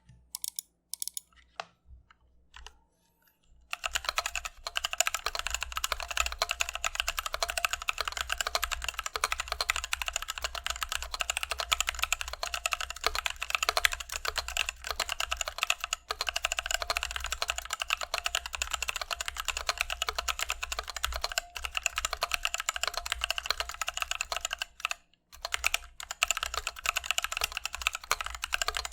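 Typing on an ID80 mechanical keyboard with stock Novelkeys Cream linear switches: a few scattered keystrokes, then fast, continuous typing from about four seconds in, with a short pause near the end.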